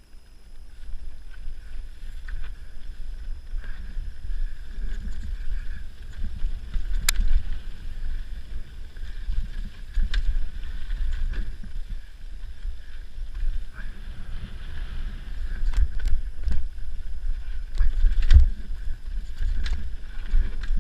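Mountain-bike rear shock, a RockShox Vivid R2C, making a weird noise as it is worked: irregular sharp clicks and knocks over a low rumble, the loudest knocks coming about 7, 10, 16 and 18 seconds in.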